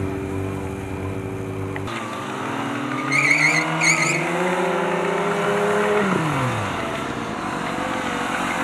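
Sport motorcycle engine running steadily, then revving up in a rising pitch while the rear tyre spins in a smoky burnout, with two short tyre squeals about three seconds in; the revs drop away about six seconds in.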